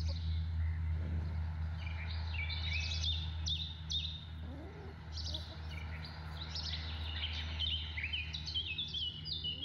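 Wild songbirds chirping and singing in quick, repeated stepped phrases throughout, over a steady low hum.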